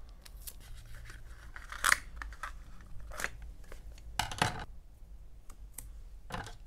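Scissors snipping through a thin paperboard cosmetics box: a handful of separate crisp cuts about a second apart, the loudest pair about halfway through.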